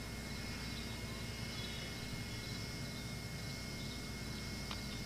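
Steady outdoor ambience of insects chirping, over the hiss and steady hum of a VHS camcorder. A single faint click comes near the end.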